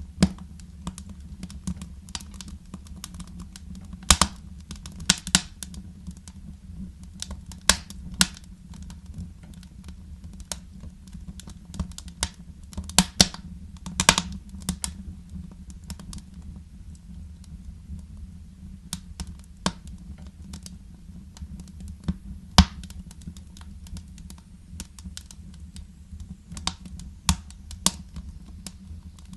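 Wood fire crackling in a fireplace: irregular sharp snaps and pops, some in quick clusters, over a steady low rumble of the flames.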